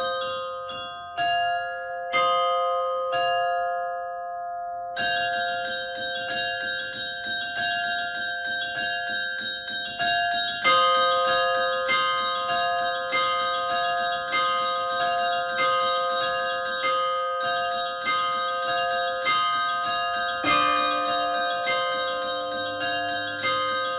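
Russian Orthodox church bells ringing an Easter peal (perezvon): repeated strikes on several bells of different pitch, each tone ringing on under the next. About five seconds in, a fast run of small-bell strikes joins and keeps going, and a deeper bell enters near the end.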